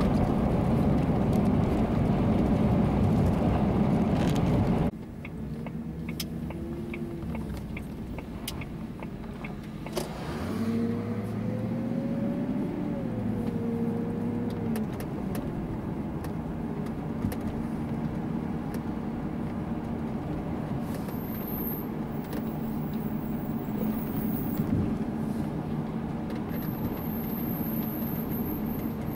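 Car engine and road noise heard from inside the cabin while driving. About five seconds in the sound drops abruptly to a quieter engine note, which climbs in pitch and falls again near the middle.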